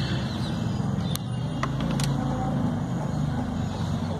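Steady low engine rumble, with a few faint light clicks as the metal engine-oil dipstick is slid back into its tube.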